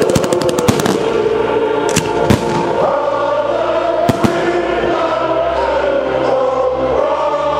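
Fireworks display set to music: dense crackling for about the first second, then a few sharp bangs, two near 2 s and two near 4 s, over a recorded music track with long held notes.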